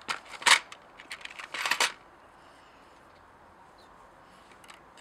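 Small metal engine parts clicking and rattling as they are handled by hand at an open chainsaw crankcase, a quick run of clicks and rattles in the first two seconds.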